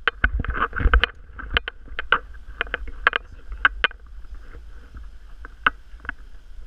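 Irregular sharp clicks and taps, a few a second, over a low wind rumble.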